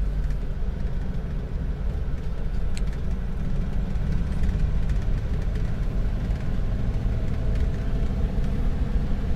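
Steady engine and road rumble of a Ford car driving along, heard from inside the cabin.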